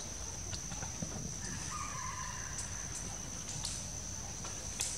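Steady high-pitched drone of forest insects, with a faint drawn-out wavering call about two seconds in and a few soft clicks.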